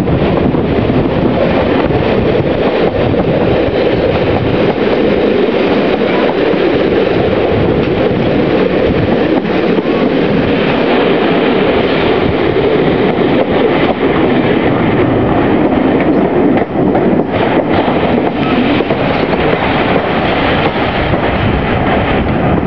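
Locomotive-hauled passenger train running along the track, heard from an open window: a steady loud rush of wheel and wind noise, with clicks as the wheels run over rail joints and pointwork.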